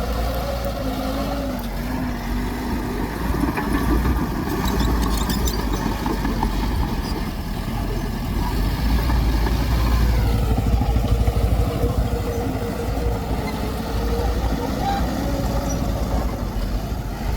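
Heavy diesel earthmoving machinery running under load, a bulldozer and dump truck working soil: a steady low engine rumble whose pitch shifts, dropping about ten seconds in, with a brief rattle around five seconds in.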